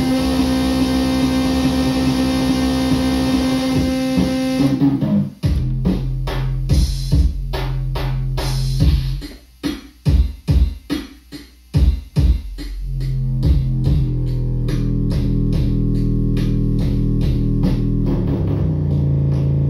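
Circuit-bent Meowsic toy cat keyboard making glitchy electronic tones. A held drone about five seconds in breaks into a stuttering pattern of short, chopped pulses with brief dropouts, then settles back into a steady low drone that shifts pitch near the end.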